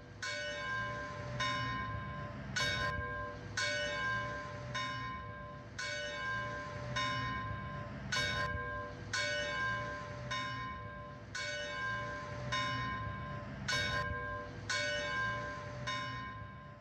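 Church bells ringing, struck in a steady rhythm about once a second, each stroke ringing on and fading before the next.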